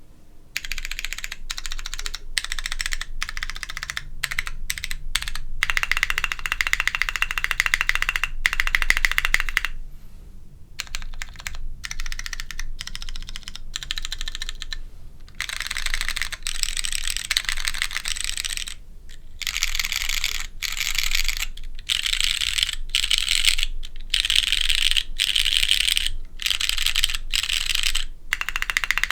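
Fast typing on a Matrix Corsa mechanical keyboard with lightly lubed Cherry MX Brown switches on a polypropylene plate and DCS keycaps: a crisp, clean clatter of keystrokes in long runs, with a few short pauses.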